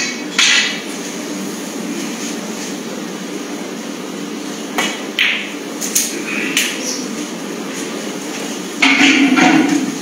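Steady low room hum with a few brief sharp knocks and clicks, and a louder burst of sound lasting under a second about nine seconds in.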